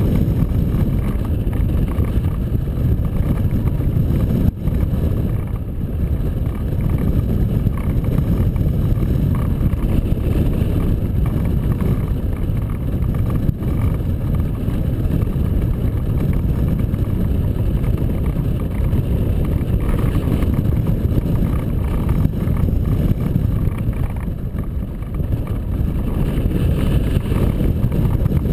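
Wind buffeting the microphone of a camera mounted on a hang glider in flight: a loud, steady low rumble of rushing air, dipping briefly twice.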